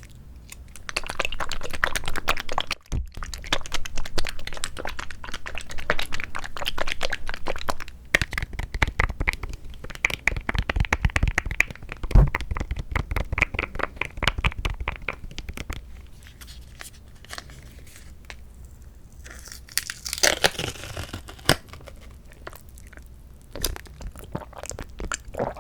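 Close-miked crinkling and tearing of a plastic fruit cup and its lid, in dense rapid clicking spells through the first half, then quieter, with a short burst about twenty seconds in.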